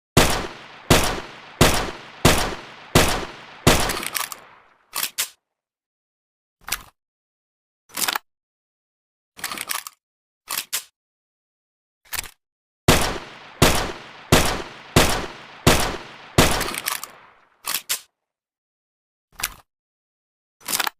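Homemade sound effect imitating M1911 pistol fire. Two strings of six or seven shots, each about 0.7 s apart and each with a short decaying tail, are separated by scattered single sharp clicks. The gaps between the sounds are dead silence.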